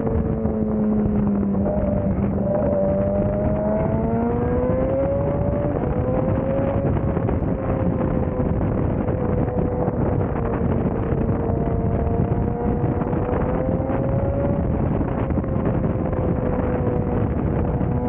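BMW S1000RR inline-four engine through an Akrapovič full exhaust system, held at fairly steady revs, with the pitch climbing gently about four seconds in and again about two-thirds of the way through. Heavy wind rushes over the microphone throughout.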